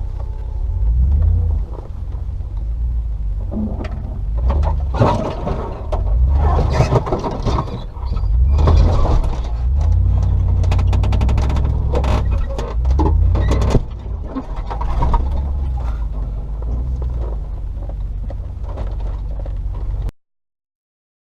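Range Rover P38's 4.0-litre V8 running at low revs as the vehicle drives along a rough track, with bursts of knocking and rattling from the bodywork along the way. The sound cuts off suddenly near the end.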